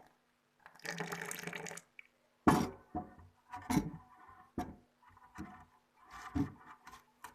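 Boiling water poured into a glass over eucalyptus leaves, a steady splashing pour lasting just over a second. Then about six sharp knocks as things are handled and set down.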